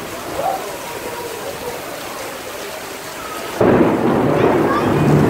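Heavy rain pouring down onto pavement in a steady rush. About three and a half seconds in, the sound turns abruptly louder and deeper.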